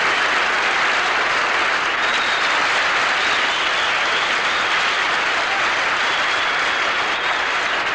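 Large banquet audience applauding, a steady dense clapping that holds through the whole stretch.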